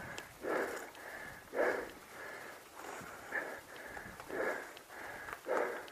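A mountain biker breathing hard while riding, with heavy, regular breaths about once a second.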